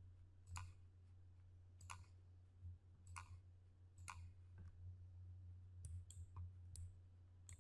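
Faint computer mouse and keyboard clicks, about nine short sharp clicks at irregular intervals, over a steady low hum.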